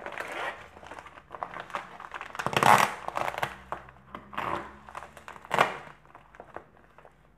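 Plastic courier mailer crinkling and rustling as it is cut and torn open by hand, in irregular bursts with louder crinkles about two and a half and five and a half seconds in.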